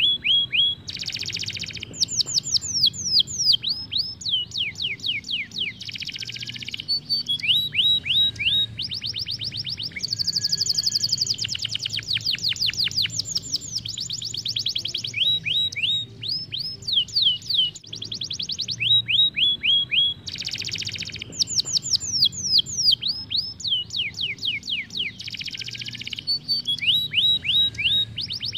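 Isabel canary singing continuously in rolling trills: fast runs of short falling whistles alternating with dense buzzy rolls, switching to a new phrase every second or two.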